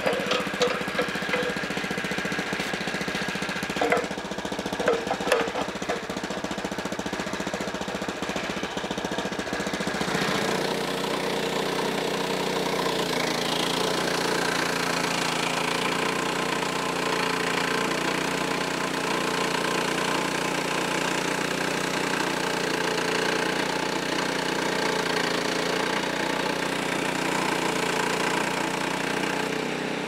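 Frontier OS23 portable band sawmill running on its small engine, with a few sharp knocks in the first several seconds. About ten seconds in, the sound changes to a steadier, fuller drone that holds to the end.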